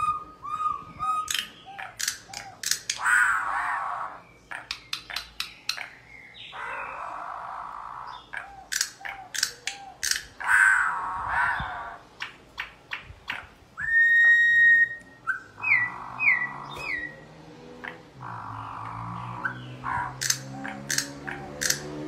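Campo troupials (corrupião) singing: a run of clear whistled notes mixed with harsh, noisy notes and sharp clicks, with one long held whistle about two-thirds of the way through. Lower repeated sounds join near the end.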